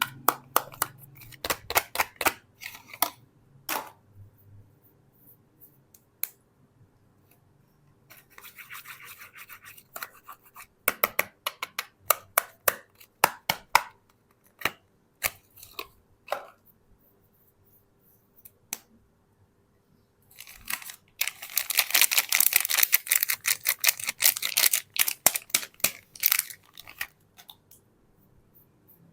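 Soap packaging being handled and opened by hand: scattered sharp crackles and clicks, with a crinkling burst about eight seconds in and a longer, louder stretch of dense crinkling about twenty seconds in.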